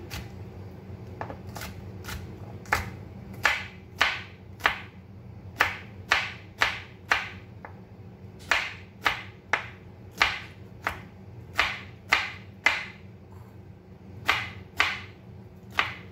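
Kitchen knife dicing cucumber on a plastic cutting board: a run of crisp chops, mostly one or two a second, with a couple of short pauses.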